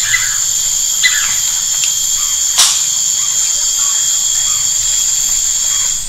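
Steady, high-pitched whine of forest insects, unbroken throughout, with a few short bird chirps near the start and about a second in.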